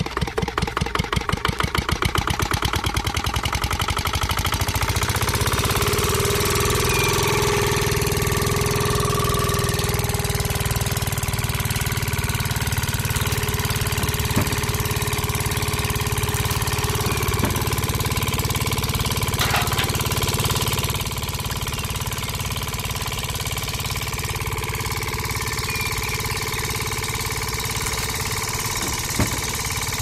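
Small single-cylinder diesel engine starting: separate chugs speed up over the first few seconds and settle into a steady run. A few light clicks come later on.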